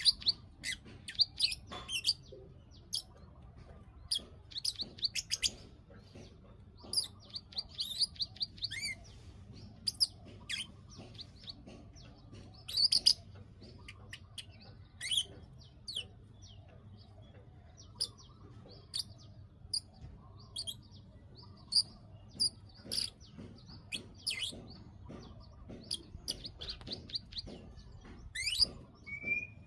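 Bar-winged prinia (ciblek) calling its 'klik-klik' call: rapid trains of high clicking notes, repeated every few seconds, with single sharp chirps in between.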